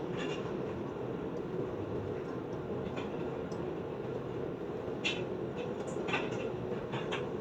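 Rain falling steadily: an even low rush, with a few sharper single drop ticks scattered through it.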